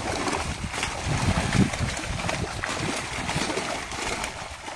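Many fish thrashing and leaping in the shallow water of a seine net drawn in to the bank, a busy, irregular splashing.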